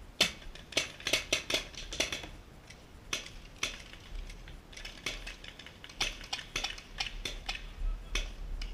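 Paintball markers firing: irregular strings of sharp pops, several a second, with short gaps between volleys.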